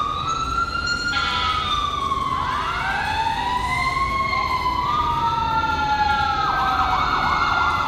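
Several sirens wailing over one another, each rising and falling slowly in pitch, with a quicker repeated yelp near the end.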